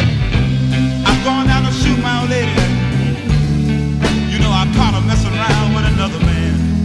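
Rock music from a band: a lead melody bending in pitch over a steady bass and drums.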